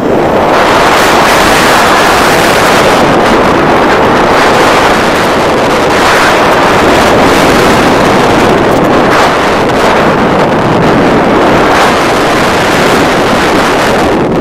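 Loud, steady wind rushing over the microphone of a camera worn by a paraglider pilot in flight.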